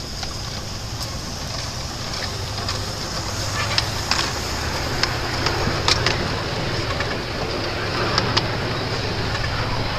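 Miniature live-steam locomotive moving off with its ride-on passenger cars: a steady hiss of steam over a low rumble, with scattered sharp clicks and knocks from the running train, several in close pairs.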